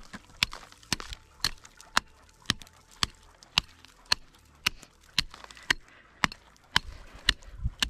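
An unhafted axe head chopping through lake ice: evenly paced sharp strikes, about two a second.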